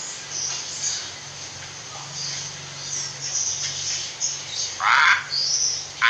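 Hill myna giving scattered short, high chirps and whistles, with a louder harsh call about five seconds in followed by a quick whistle. A faint steady low hum runs underneath.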